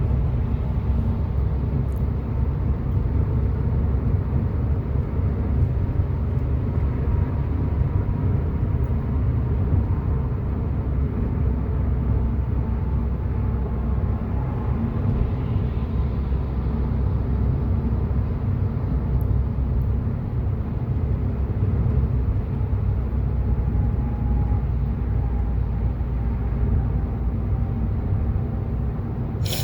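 Steady road and engine rumble inside a car cruising on the highway, even and unbroken, with a short click at the very end.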